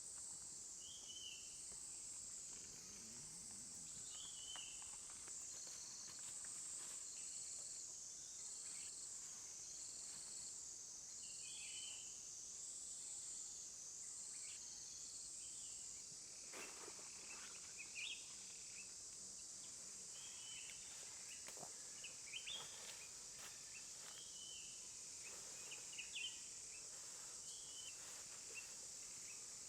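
Faint forest insect chorus: a steady high-pitched drone whose pitch wavers slowly up and down for the first half, with a second insect pulsing about once a second beneath it. Short bird chirps come throughout, and a few light knocks sound in the second half.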